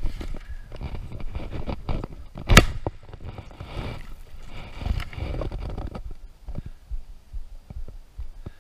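Irregular knocking, scraping and handling clatter in a boat as a hooked alligator is pulled up alongside, with one sharp, loud crack about two and a half seconds in.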